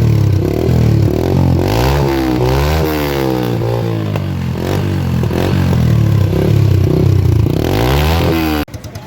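Yamaha YBR125G's single-cylinder four-stroke engine revved repeatedly through an Akrapovic-style double-outlet silencer on a short bend pipe, its pitch rising and falling with each blip of the throttle. The sound cuts off suddenly near the end.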